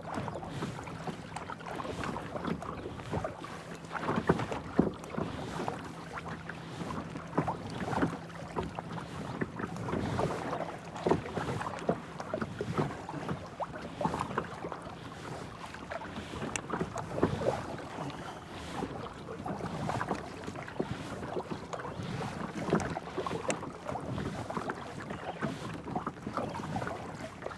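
Kayak paddle blades dipping into smooth, calm water at an easy pace: a steady run of small splashes and drips, roughly a stroke every second or so.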